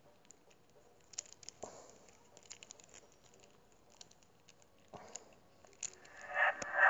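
Near silence with a few faint scattered clicks; about six seconds in, loud music from the played video starts up.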